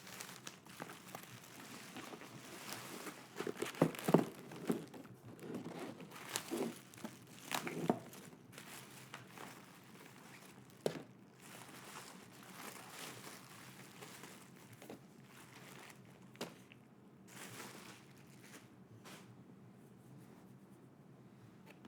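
Packaging being handled and unwrapped by hand: crinkling and rustling with a few sharp taps. The handling is busiest in the first eight seconds or so and quieter after, with a lone sharp click about eleven seconds in.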